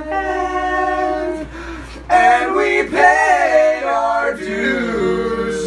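Unaccompanied young voices singing with long held notes, several voices overlapping and louder from about two seconds in.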